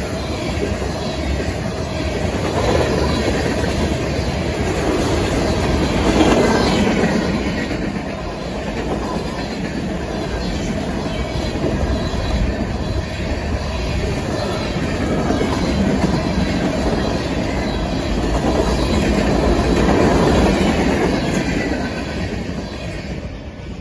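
Freight train cars, mostly tank cars and boxcars, rolling past at speed with the wheels rumbling and clacking over the rails. The noise falls away near the end as the last car goes by.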